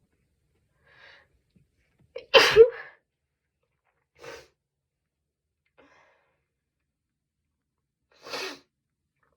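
A person sneezes once, loud and sudden, about two seconds in. Quieter short breathy sounds follow, with a stronger short one near the end.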